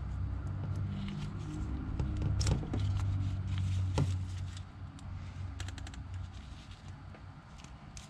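Gloved hands handling a plastic wiring connector and its wire terminals, giving scattered small plastic clicks and a quick run of light ticks, over a low hum that fades out about halfway through.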